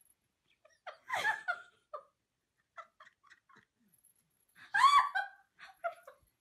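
High-pitched laughter in two outbursts, one about a second in and a louder one about five seconds in, with short softer giggles between them.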